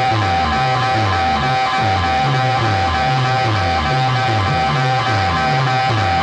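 Loud music played through a stack of horn loudspeakers: a repeating bass line under guitar-like music, with a steady high tone over the top.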